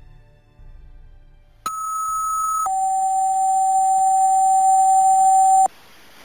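Two-tone dispatch radio page alerting a crew to a call: a higher steady tone for about a second, then a lower steady tone held for about three seconds, cut off sharply. Soft background music fades out before the tones start.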